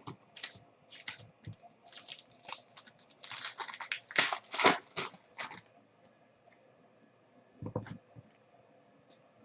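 Trading cards and their pack wrapper being handled: a run of crinkling, tearing rustles and clicks for about five seconds, then quiet apart from a soft knock near the end.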